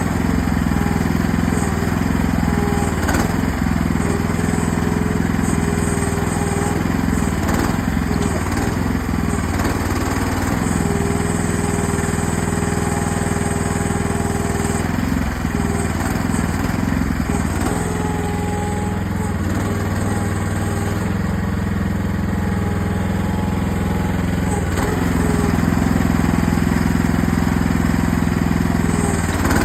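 AGT mini excavator running steadily while digging, its engine note holding even with higher tones that come and go every few seconds.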